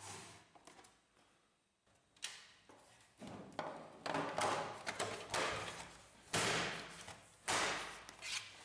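Plastic side panel of an HP Laser 100-series printer being fitted and pressed onto the casing: plastic rubbing and scraping, with several sharp knocks and clicks as the panel's tabs snap into place.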